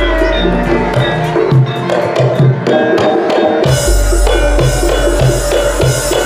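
Live Javanese gamelan-style stage music: drums, wood-block clicks and sustained ringing metal notes. A bit over halfway through it suddenly grows fuller, with a deep beat and a cymbal-like shimmer.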